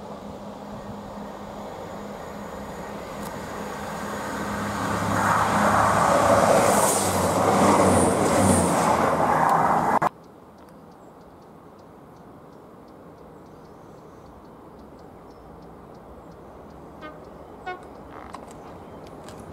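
A train approaching and running past, a steady low engine or motor note growing louder over several seconds before the sound cuts off suddenly about ten seconds in. After that there is only a faint outdoor background.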